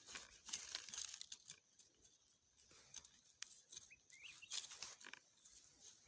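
Dry leaves and plant stems crackling and rustling, with irregular sharp snaps: vegetation being handled or trodden while krachiao flowers are picked.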